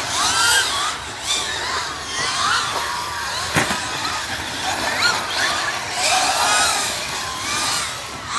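Large-scale radio-controlled off-road buggies and trucks racing on a dirt track: several motors whining, each rising and falling in pitch again and again with the throttle. One sharp knock about three and a half seconds in.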